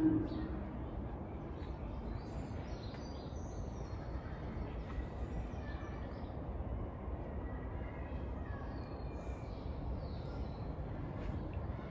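Outdoor ambience: a steady low rumble with faint, scattered bird calls, and a short low rising tone at the very start.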